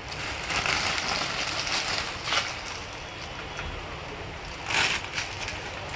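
Clear plastic bag rustling and crinkling as bundles of wired earphones are handled, busiest in the first couple of seconds, with a couple of short crinkles later.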